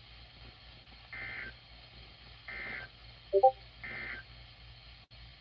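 NOAA Weather Radio SAME end-of-message signal: three short digital data bursts, about a second and a half apart, closing the severe thunderstorm warning broadcast. A brief, louder blip comes just before the third burst.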